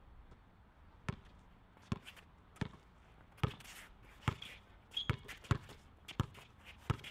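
Basketball dribbled on a hard court: a steady series of sharp bounces, a little faster than one a second, with a quicker pair about five seconds in as the dribbler drives.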